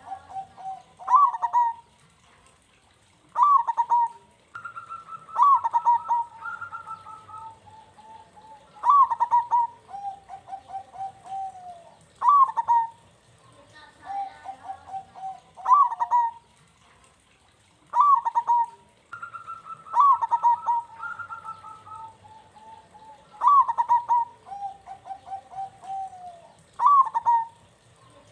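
Zebra doves (perkutut) cooing. Each call is a sharp rising-and-falling note followed by a run of quick staccato coos, repeated about every three to four seconds. Twice a second, higher-pitched voice overlaps the calls.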